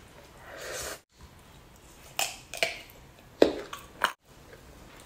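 Close-miked eating sounds of a person biting and chewing spicy duck meat, with several sharp wet smacks and clicks in the middle seconds. Two brief dead-silent gaps break it up.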